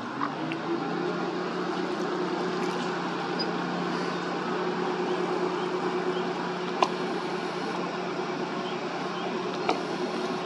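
Tugboat engine running steadily at a constant pitch while towing a grounded schooner off. Two sharp clicks, about seven seconds in and near the end.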